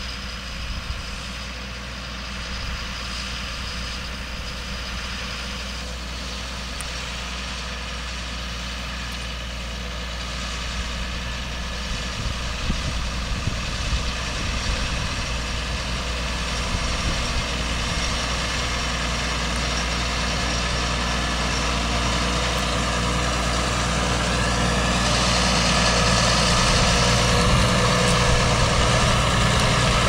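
Claas Arion 610 CIS tractor's six-cylinder diesel engine running steadily under load while pulling a plough through the soil. It grows gradually louder over the second half as the tractor comes close.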